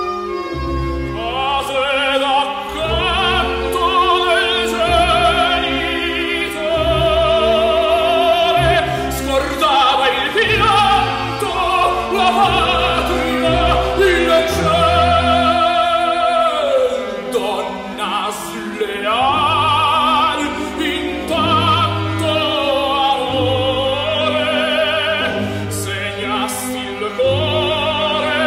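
Operatic tenor singing an aria with an orchestra, the voice holding long notes with a wide vibrato over sustained strings and low bass tones.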